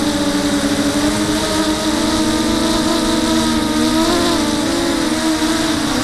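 Brushless motors and propellers of a TenTech Thug 250 racing quadcopter buzzing steadily in flight, the pitch wavering slightly as the throttle changes.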